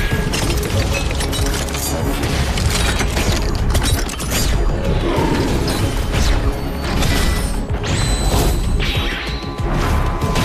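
Cartoon sound effects of a car transforming into a robot: a dense run of metallic clanks and mechanical clicks over loud action music.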